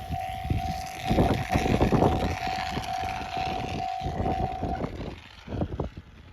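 Japanese railway level-crossing alarm ringing in a steady repeating tone, over the uneven rumble of a train passing and receding. The alarm cuts off about five seconds in as the crossing clears, and the train noise fades.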